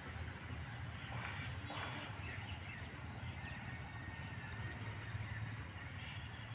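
Birds calling faintly over steady outdoor background hum, with two brief calls a little over a second in.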